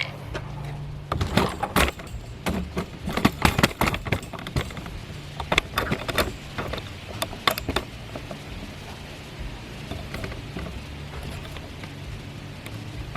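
Plastic seat trim and the height-adjuster lever handle being fitted back onto a car seat: a run of irregular clicks and knocks, thinning out after about eight seconds, over a steady low hum.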